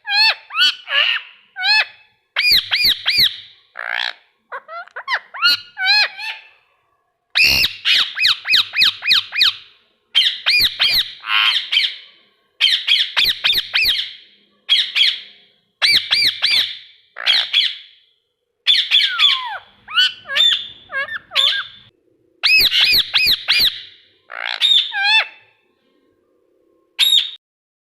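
Indian ringneck parrot screeching, loud rapid strings of high calls in bouts of a second or two with short pauses, ending with a single short call near the end.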